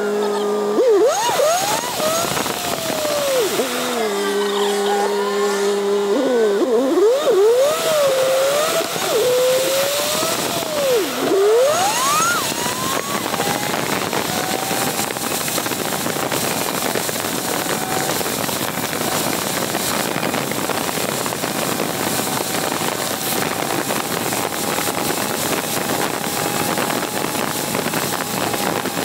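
Road and wind noise from under a moving car: an even rushing of tyres on pavement and air over the camera. During the first twelve seconds or so, whistling squeals repeatedly rise and fall in pitch, then give way to the steady rush.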